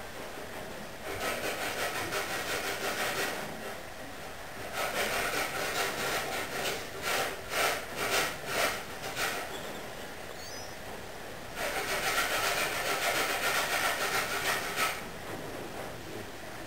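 Sleeping English Cocker Spaniel breathing noisily as it dreams: three raspy runs of quick snuffling breaths, each a few seconds long. The middle run breaks into separate huffs about two a second.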